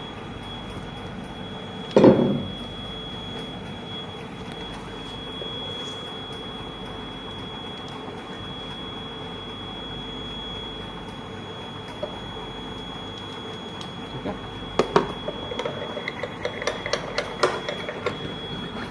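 Porcelain pestle clicking and scraping in a small porcelain mortar as petunia leaves are ground, quick irregular strokes that start about fifteen seconds in and grow busier. Before that, a steady room hum with a thin high whine, broken once about two seconds in by a single loud knock on the bench.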